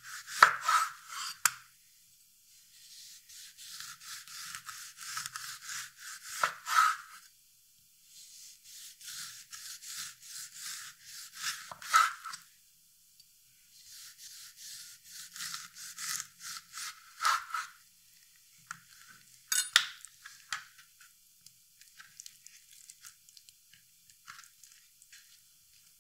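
Chef's knife sawing through a whole orange on a bamboo cutting board, slicing it into rounds: crisp crackling of peel and juicy flesh through each stroke, ending in a sharp knock of the blade on the board, about five slices in all. The last few seconds hold only faint scattered ticks.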